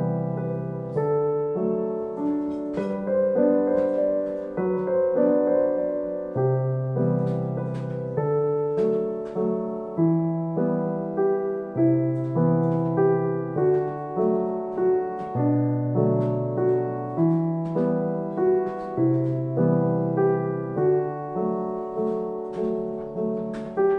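Background piano music: notes struck in an even pulse over a low bass note that changes every second or two.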